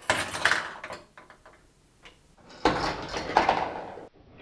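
LEGO rock-drop trap being worked: plastic clatter of the lever mechanism and chain as the hanging rock drops, in two bursts about two and a half seconds apart, the second cutting off suddenly.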